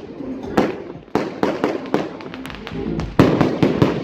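A 500-gram 3111 Constellation Octans fireworks cake firing: a rapid string of sharp bangs from bursting shells, with fine quick crackles about two and a half seconds in and a tight cluster of loud bangs near the end.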